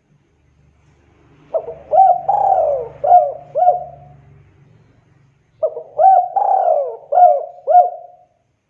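Spotted dove (tekukur) cooing: two song phrases of about five notes each, the second starting about halfway through.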